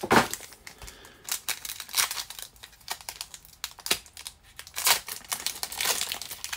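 Foil wrapper of a Mosaic basketball card pack crinkling and tearing as it is worked open by hand: irregular crackling, with a loud crackle right at the start.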